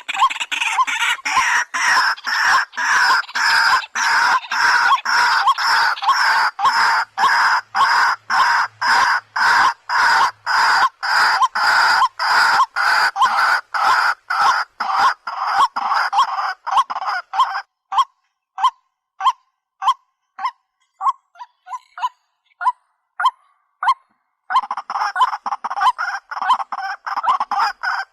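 White-breasted waterhen (dahuk) calling: a fast, steady run of repeated harsh notes, a little over two a second. Past the middle the calling thins to sparser, softer single notes for several seconds, then the full rapid series starts again near the end.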